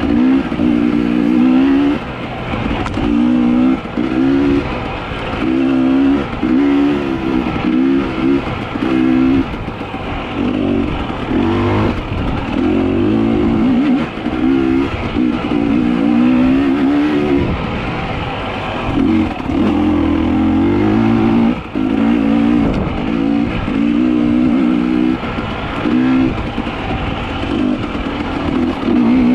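An engine revving up and down in repeated spells of a second or a few seconds, its pitch wavering.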